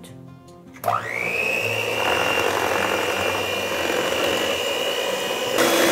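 Electric hand mixer switched on about a second in, its motor spinning up to a steady high whine as the beaters churn a liquid in a bowl. The sound grows louder and harsher near the end.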